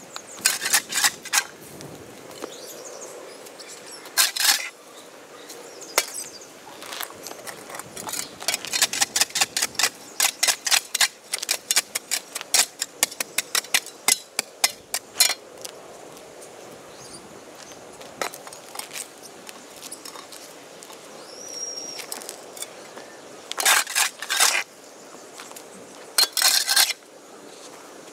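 Flat-bladed steel spade chopping and scraping overgrown turf off a concrete kerb: sharp metal-on-concrete strikes in bursts, with a fast run of chops in the middle, about two to three a second.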